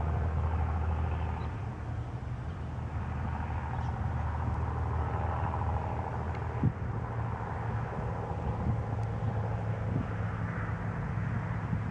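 Steady low rumble of road traffic, with one small knock about halfway through.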